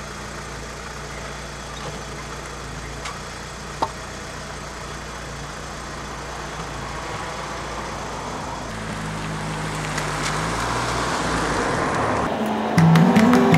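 Car engine idling steadily, with a single short knock about four seconds in, then the engine note rising and growing louder as the car pulls away. Near the end, loud music cuts in suddenly.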